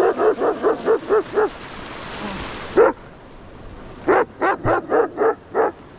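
A dog barking at passers-by: a quick run of about seven barks, a single bark, then another run of about six, around five barks a second.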